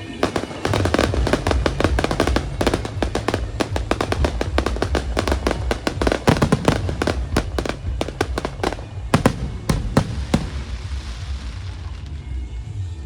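Fireworks going off in a rapid crackling barrage of many bangs, thinning to a few scattered bangs about nine seconds in and then dying away.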